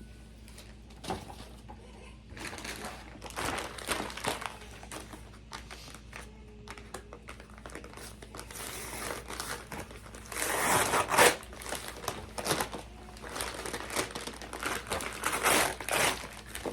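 Crinkling and rustling of packaging being handled and torn open, in irregular spells, the loudest about two thirds of the way through.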